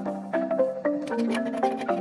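Background music: a quick melody of short, bright struck notes over a steady low sustained tone.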